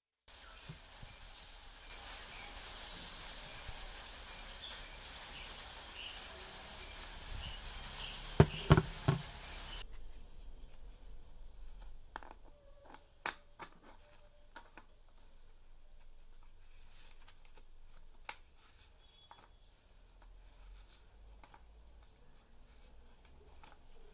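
Quiet handling noises. A quick run of four sharp clicks comes about eight and a half seconds in, over a steady hiss that drops away near ten seconds. After that, scattered light metal clicks are heard as a welded steel sprocket is slid onto a motorcycle engine's splined output shaft.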